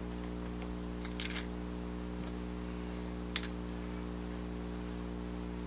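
Steady electrical hum, with a brief patter of soft handling clicks about a second in and one sharp click a little past three seconds.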